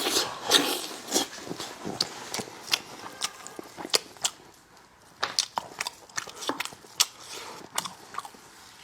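A person chewing and biting food close to the microphone, with irregular sharp clicks and smacks of the mouth.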